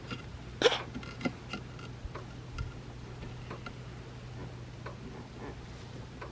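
Scattered light clicks and taps from small parts and hand tools being handled during wiring work, the sharpest about a second in, over a steady low hum.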